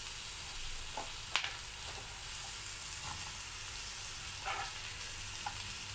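Freshly added green capsicum pieces sizzling in hot oil in a frying pan: a steady hiss. A few light taps of a steel spatula on the pan come through, the clearest about a second and a half in.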